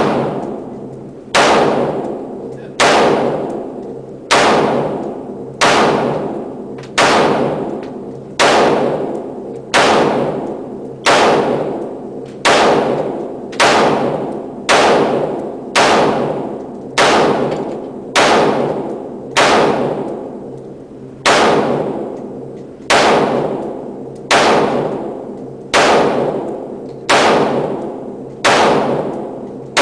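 Gunshots at a steady pace, about one every second and a half, each sharp report followed by a long echoing tail.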